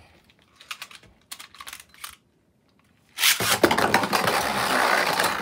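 After a few faint clicks and a short pause, two Beyblade Burst spinning tops are launched into a plastic stadium about three seconds in: a sudden, loud whirring rush as they spin and scrape across the stadium floor.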